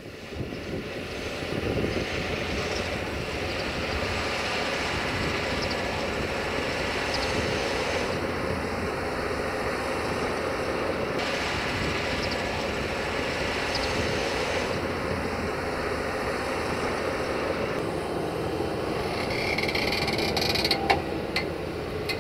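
Fendt Vario tractor's diesel engine running steadily under load as it pulls a tined cultivator through stubble, with a few sharp clicks near the end.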